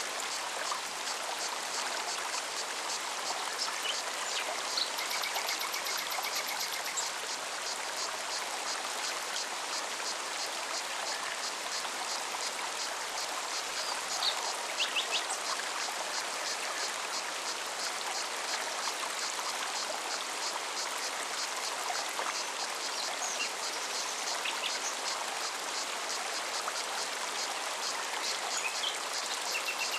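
Mountain stream flowing steadily over rocks, with a cicada's fast, even pulsing high above the water and a few short bird chirps.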